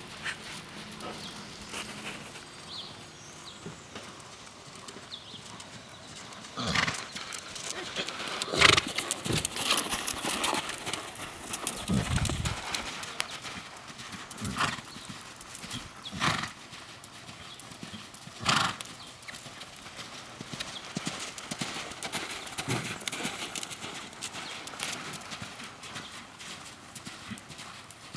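Hoofbeats of a brumby trotting and cantering on a sand arena, an uneven run of soft footfalls with several louder knocks in the middle stretch.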